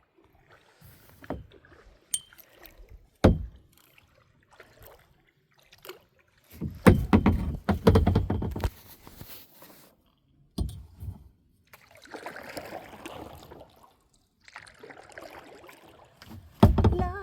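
Water splashing and sloshing with scattered knocks, loudest in a long burst of splashing about seven to nine seconds in.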